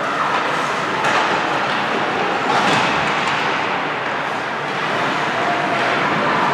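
Ice hockey game ambience in a rink: a steady din of skates on the ice and crowd noise, with a few sharp knocks of sticks or the puck.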